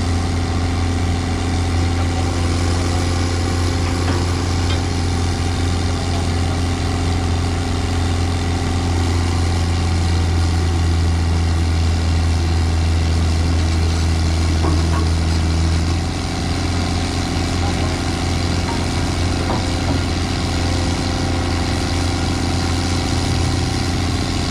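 Heavy diesel engine running steadily with a deep, even hum; its note shifts about two-thirds of the way through.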